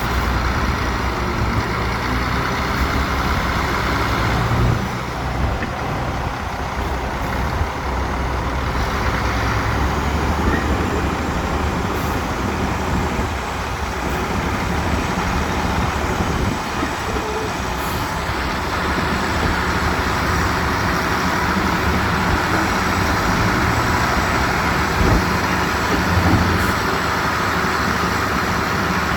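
Heavy diesel construction machinery, dump trucks and a bulldozer, running steadily under load, with a low, continuous engine drone.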